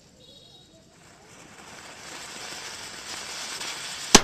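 Ganga Jamuna ground-fountain firecracker burning, its spray of sparks hissing and growing steadily louder, with one sharp loud crack near the end.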